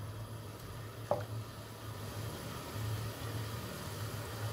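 Chopped onions sizzling softly in hot oil in an aluminium karahi, just beginning to colour, over a steady low hum. A wooden spoon gives one light knock against the pan about a second in.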